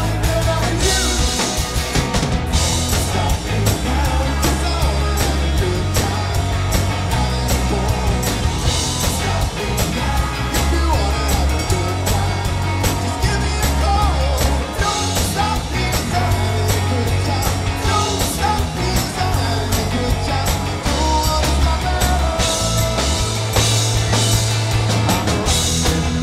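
Live rock band playing loudly: electric guitars over a driving drum kit, with heavy low end.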